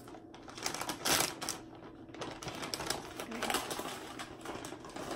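Plastic bag of shredded cheese crinkling and crackling as it is torn open by hand, with a louder crackle about a second in.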